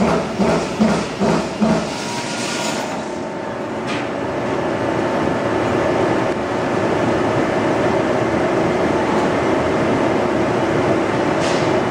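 Trumpf TC 2020R CNC turret punch press punching sheet metal, about two strokes a second for the first couple of seconds. The strokes then stop and the machine keeps running with a steady hum.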